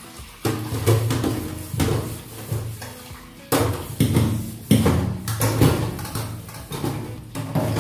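Metal utensils (aluminium bowls and steel pots) being hand-washed: they knock and clatter against each other and the steel sink in a string of ringing clanks, with tap water running.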